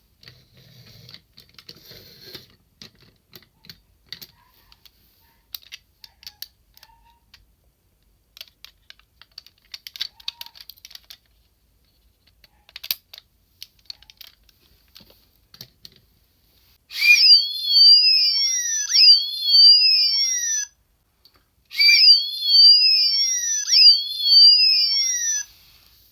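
Light plastic clicks and taps as the DX Sirender toy is handled, then its electronic siren sounds twice, each time for about three and a half seconds, with tones sweeping up and down. The siren is the toy's sound feature, meant to be set off by blowing a whistle but sensitive enough to go off by itself.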